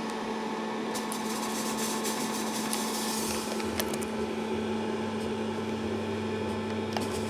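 Antari Z-Series Fazer fog machine running with a steady electric hum from its fan, a lower drone joining about four and a half seconds in.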